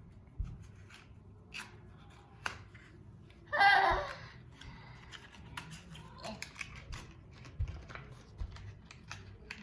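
Foil blind-bag packaging being handled and crinkled open by hand, with scattered small clicks and rustles and one louder crinkling burst about three and a half seconds in.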